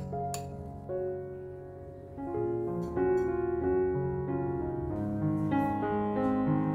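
Piano background music: a steady run of single notes and chords.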